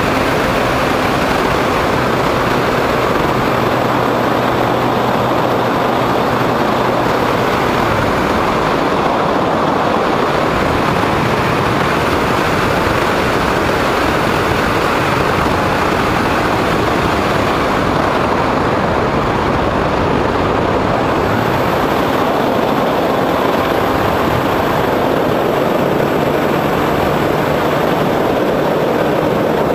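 Steady rush of air over a camera mounted on a foam RC plane in flight, with the drone of the plane's motor and propeller under it; a faint low hum in it shifts pitch now and then.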